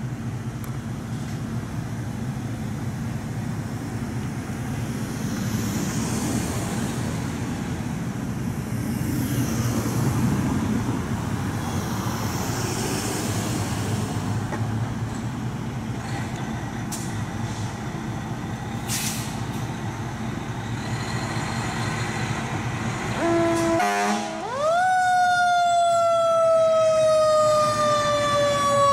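Passing street traffic for most of the time. Near the end a fire engine's siren gives a few short tones, then starts a wail that rises quickly and falls slowly as the engine leaves the station on an emergency call.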